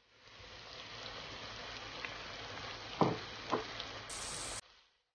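Rui fish and flat beans sizzling steadily in oil in a nonstick pan, with two sharp knocks about half a second apart a little past the middle. The sizzle cuts off suddenly near the end.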